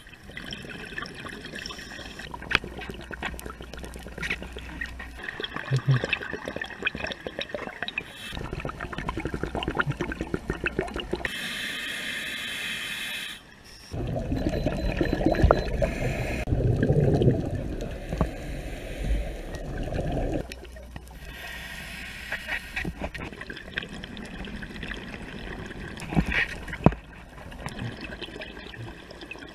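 Muffled underwater bubbling and gurgling from scuba divers' exhaled air, with scattered small clicks. A louder run of bubbling comes in the middle.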